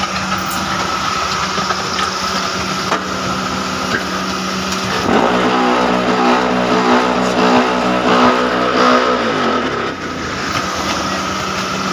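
Concrete paver block machine running: the electric hydraulic power pack hums steadily, and about five seconds in the mould's vibrator motor starts up for the compaction stroke, shaking loudly for about four seconds before winding down.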